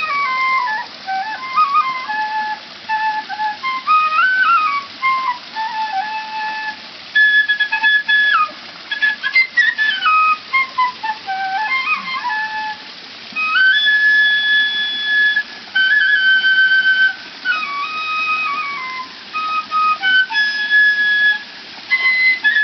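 Bamboo transverse flute playing a slow melody: long held notes joined by quick sliding ornaments and runs, with short breaks between phrases, over a steady hiss in the background.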